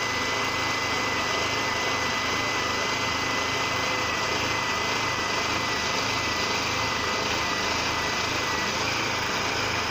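Small petrol engine running steadily at constant speed, with a thin steady whine over it, such as a generator or engine-driven track tool at a night track-work site.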